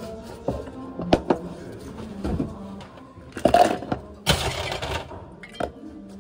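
Ice cubes clattering from a scoop into a plastic cup of brown sugar milk tea, with scattered sharp clinks and two louder rattling rushes of ice about three and a half and four and a half seconds in.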